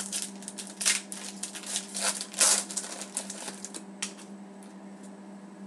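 Foil wrapper of a 2010-11 Panini Contenders hockey card pack being torn open by hand: a run of crinkling and crackling, loudest about halfway through, thinning to a few light rustles.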